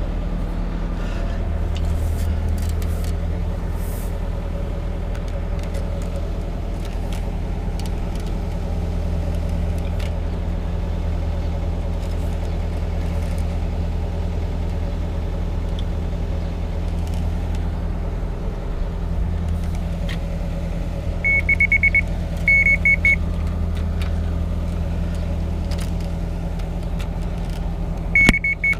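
Crawler excavator's diesel engine running steadily under the operator's working. About 21 seconds in, and again near the end, a high alarm beeps in quick even pulses.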